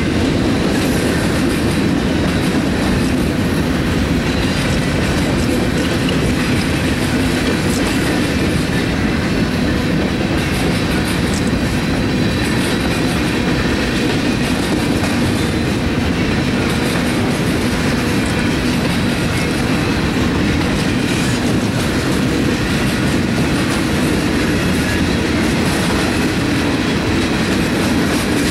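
Freight train of covered hoppers and tank cars rolling steadily through a grade crossing: a continuous rumble of steel wheels on the rails, with scattered clicks as the wheels pass over joints.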